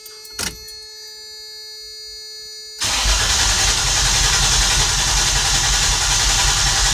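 About three seconds in, the starter begins cranking the 1994 Toyota T100's V6 over with the ignition disabled, a steady, even cranking rhythm. It sounds normal, with no sign of a missing cylinder.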